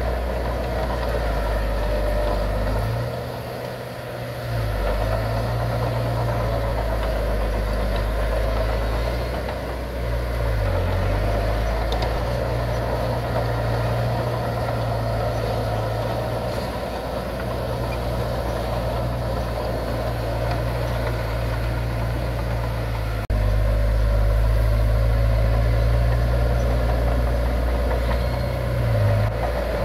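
Diesel engine of heavy earthmoving machinery running steadily under load, its note dipping briefly a few times. The sound cuts abruptly about 23 seconds in and carries on slightly louder.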